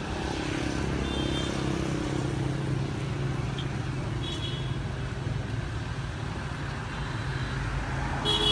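Road traffic: a motor vehicle engine running steadily, with a few faint short high beeps and a louder short horn toot near the end.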